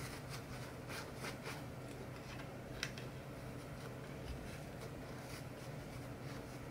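Faint rubbing and scattered light clicks from hands fitting a foam windscreen onto a Rode on-camera microphone, with one sharper click near the middle, over a steady low hum.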